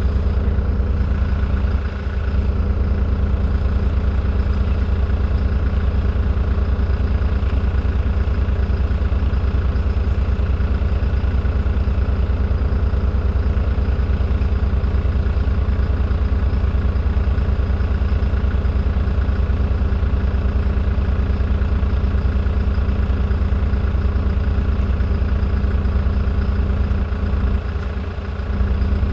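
Engine idling steadily: a loud, even, low hum with a fast regular pulse that does not change.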